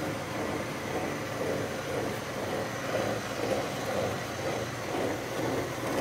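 Rear axle shaft and brake rotor of a Mercury Grand Marquis turned by hand on a lift, giving a steady rolling noise with slight swells from the axle's wheel bearing. On this side the bearing has a little bit of noise, but nothing too bad.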